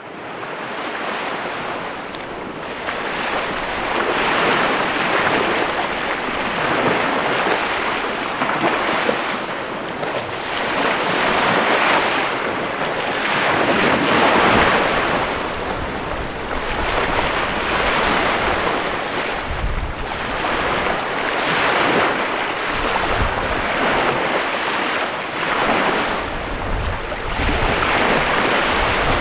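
Small Chesapeake Bay waves breaking and washing up a sandy beach: a continuous rushing surf that swells and fades every few seconds. Wind buffets the microphone now and then in the second half.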